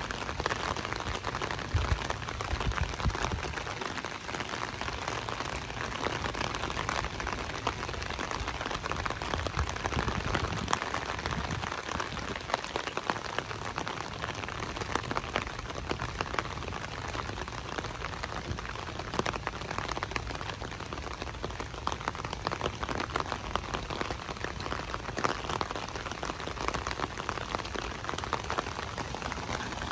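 Light rain falling, a steady dense patter of drops.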